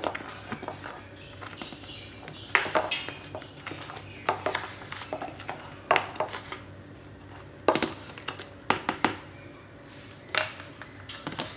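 A utensil stirring dry flour coating in a plastic tub: irregular sharp clicks and scrapes of the utensil and the tub against the plastic and the countertop.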